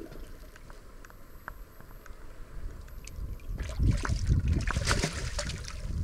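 A hooked fish splashing at the sea surface as it is reeled in to the rocks, a loud burst of splashing starting about three and a half seconds in and lasting about two seconds.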